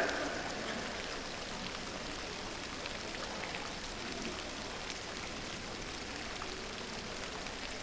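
Steady, rain-like hiss of water spraying and pattering onto the surface of a diving pool, with faint scattered ticks of droplets.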